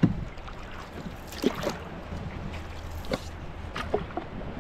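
Canoe paddle strokes: the blade catching and pulling through the water, with a splash and drip about every second and a half. A solid knock sounds right at the start.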